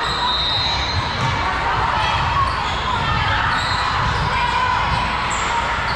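Busy volleyball gym ambience: balls thudding on the floor, short high sneaker squeaks and a crowd chattering, echoing in a large hall.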